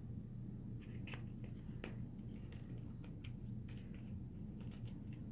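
Scattered light clicks and taps of paperboard boxes being folded and handled, over a steady low hum.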